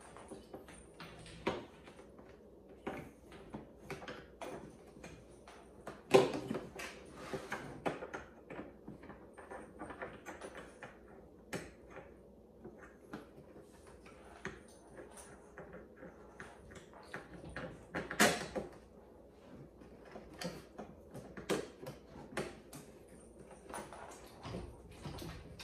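Handling and assembly noise from a Sun Joe electric lawn mower being put together: scattered clicks, knocks and rattles as the handle tubes and clips are fitted into the plastic mower body, with a louder knock about six seconds in and another near eighteen seconds.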